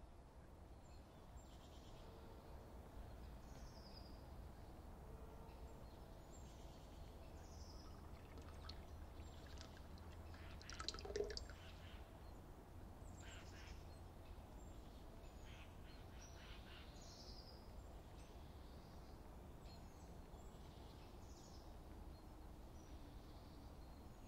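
Faint outdoor ambience: scattered small bird chirps, short falling notes, over a low steady rumble, with one louder call about eleven seconds in.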